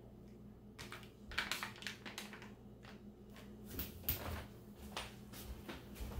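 Irregular crackles and light clicks from an MRE honey bun and its torn wrapper being handled, as pieces are broken off the pastry by hand. A faint steady low hum runs underneath.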